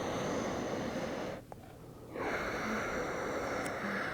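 A woman's slow, deep breaths: one long breath, a short pause of about a second, then a second long breath.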